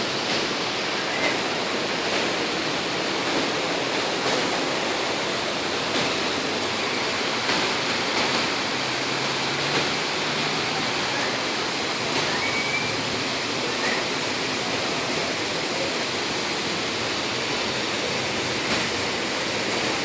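Floodwater rushing in a steady, even wash.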